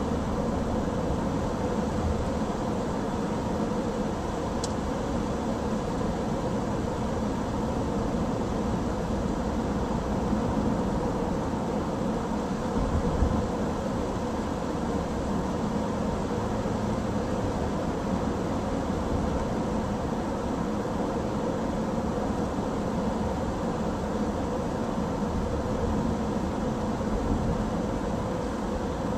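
Steady road and engine noise inside a car cruising at an even speed, with a short low thump about halfway through.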